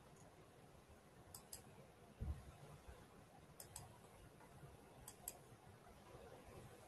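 Faint computer mouse clicks, three quick pairs about two seconds apart, with a soft low bump about two seconds in; otherwise near silence.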